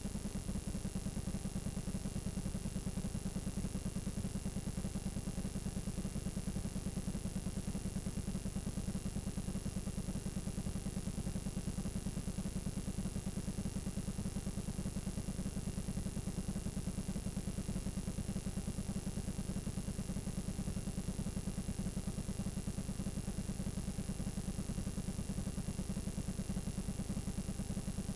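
Steady low buzz with hiss from videotape playing a blank stretch, with a thin high whine over it.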